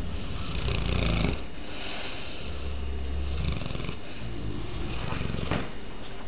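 Sleeping mastiffs snoring: a series of deep snores, each about a second long and coming every second or two, with breathy hissing between them.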